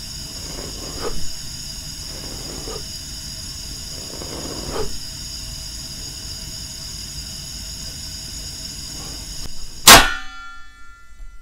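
Portable gas stove burner running with a steady hiss of flame. About ten seconds in, the stove's knob is switched off with one loud, sharp metallic click that rings briefly, and the hiss stops at once.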